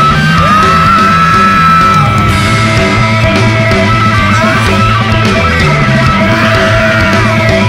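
Loud rock music from a band recording: a stepping bass line and drums under sustained, bending higher lines.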